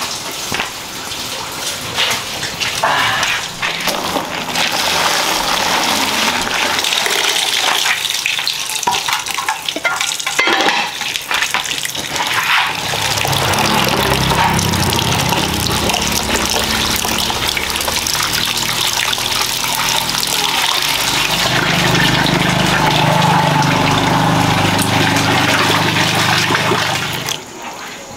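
Running water pouring from a tap into a plastic basin while hands slosh and rub freshwater moss in a colander. The water sound is steady and stops abruptly near the end.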